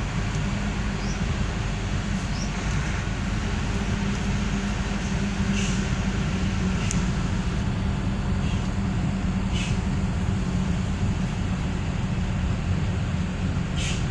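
Steady road and engine noise of a car driving along a highway, heard from inside the cabin, with a few faint clicks.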